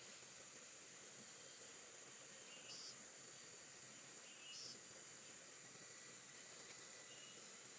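Faint outdoor insect chirring: a steady high-pitched drone, with two brief higher chirps a little before halfway through.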